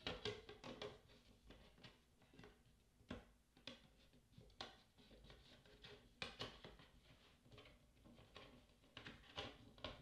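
Faint, irregular clicks and light taps of a Late 2014 Mac mini's plastic bottom cover being set on the aluminium case and shifted to line its hooks up with the screw posts.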